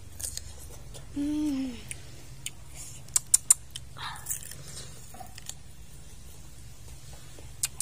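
A child biting and chewing crisp slices of green ambarella (cóc), with several sharp crunching clicks about three seconds in. A short hummed vocal sound comes about a second in.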